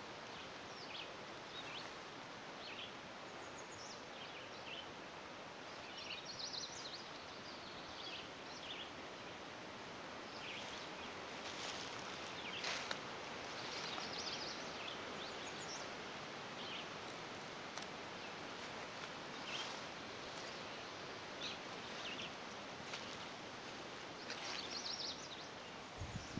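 Outdoor ambience of brushy woodland edge: a steady soft hiss with scattered short, high chirps and calls of small birds throughout.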